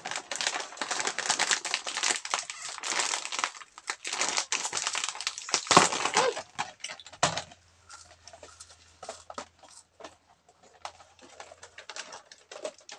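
Plastic snack wrappers crinkling as they are handled, dense and fairly loud for about the first seven seconds, then dropping to scattered quieter crackles and clicks.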